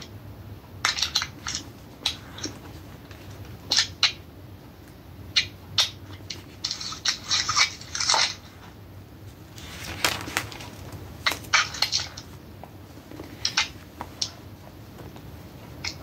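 Short, irregular rustles and crinkles of paper being handled, with a denser run of them about halfway through.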